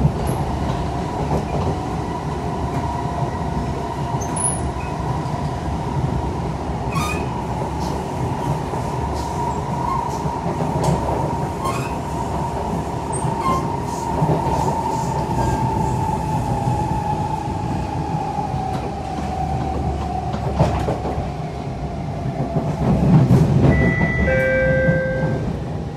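Siemens C651 metro train running along the track, heard from inside the carriage: a steady rumble of wheels with a motor whine that slowly drops in pitch past the middle as the train slows. Brief steady squeals come near the end.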